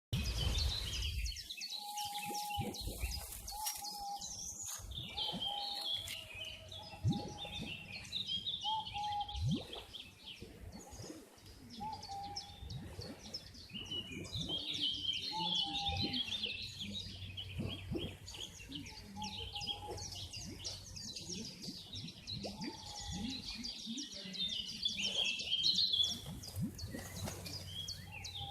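Birds singing and calling at a lake: a dense, rapid high-pitched chattering song runs throughout, with a lower short call repeated every second or two by another bird.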